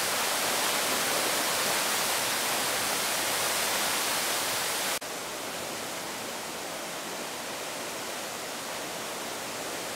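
Swollen Ciliwung River in flood: a steady rush of fast-flowing floodwater. It drops a little in level at a cut about halfway through.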